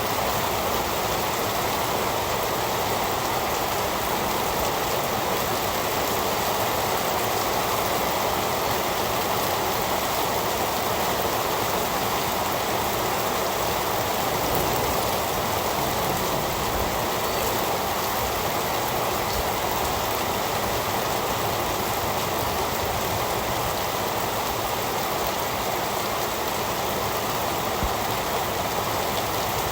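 Heavy rain falling steadily, an even wash of rain noise with scattered faint drop ticks.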